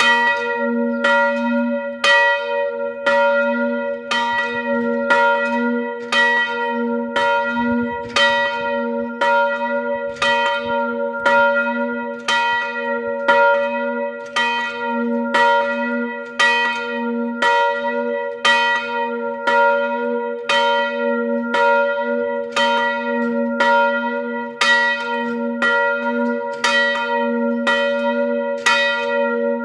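Large swinging church bell, cast in 1972, ringing steadily for the daily noon ringing. Its clapper strikes about once a second over a continuous low hum.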